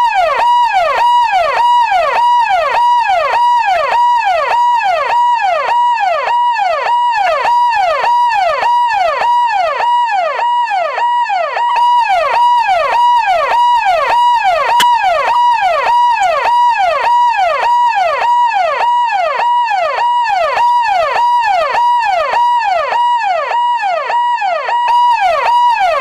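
Indian police car's electronic siren sounding loudly and without a break: a fast, repeating yelp of about two pitch sweeps a second over a steady tone.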